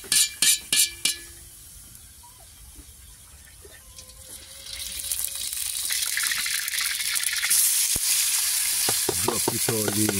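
A few quick metallic clanks of a slotted spoon against a steel wok, then, after a short quiet spell, hot oil begins sizzling in the wok over a wood fire, growing louder from about halfway through and staying loud.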